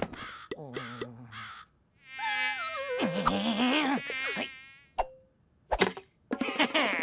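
Cartoon sound effects: a buzz like a flying insect's, wavering in pitch for about two seconds, after short grunting sounds. A sharp click follows about five seconds in, then two quick knocks.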